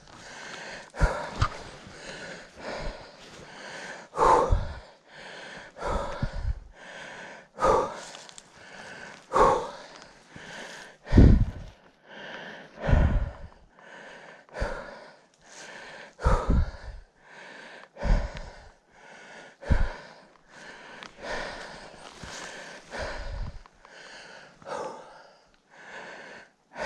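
A man breathing hard and catching his breath after heavy work: deep, noisy breaths about every second and a half to two seconds, each exhale puffing on the microphone.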